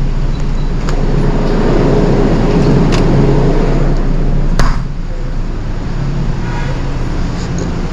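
Loud, steady street traffic noise with three sharp clicks, the loudest about four and a half seconds in.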